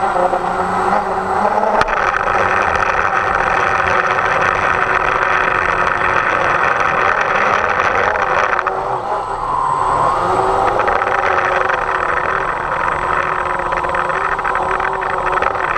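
DJI Phantom quadcopter's electric motors and propellers whining, heard from its onboard camera, with their pitch wavering up and down over heavy wind noise.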